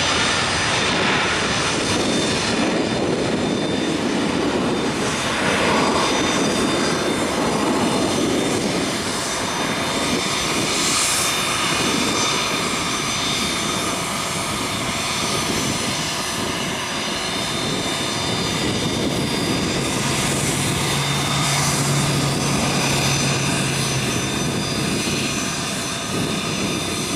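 Boeing 737-700's twin CFM56-7B turbofan engines at takeoff thrust: a continuous, steady jet roar through the takeoff roll and climb-out.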